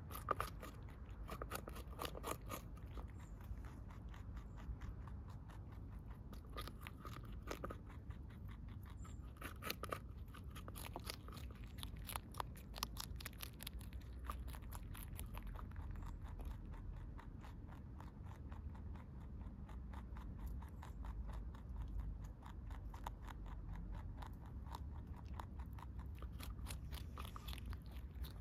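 A lop-eared rabbit munching fresh vegetables, its teeth giving a fast steady run of small crunching clicks.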